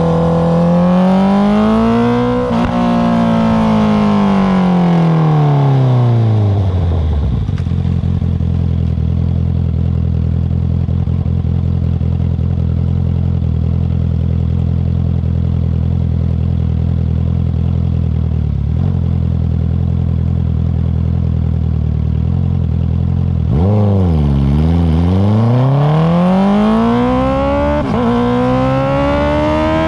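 A 2019 Honda CB650R's inline-four through an Akrapovic Racing Line titanium exhaust. It revs up briefly, then winds down to a steady idle for about fifteen seconds. It then pulls away, revving up through the gears with a short break at each upshift.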